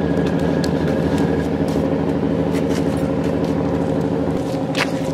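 Steady drone of a large fishing trawler's diesel engine running at the quayside, with a few light clicks and knocks over it.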